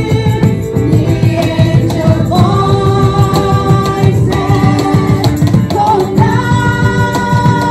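A group of voices singing a Christmas carol together into microphones, holding long notes, over acoustic guitar accompaniment with a steady rhythm underneath.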